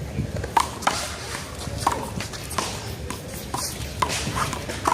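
A one-wall handball rally: a small rubber handball slapped by hand and smacking off the wall and pavement, about eight sharp, irregular smacks, with scuffing sneaker footsteps.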